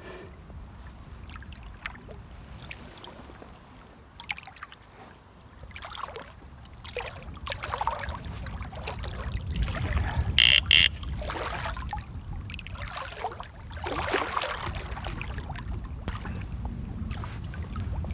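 Water sloshing against a small inflatable boat, with wind rumbling on the microphone. About ten seconds in come two short, very loud sounds close together.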